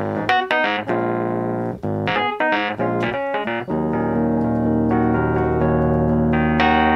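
Nord Electro 4D stage keyboard playing a solo piano-voiced break: quick repeated chord stabs, then a long held chord from about halfway through.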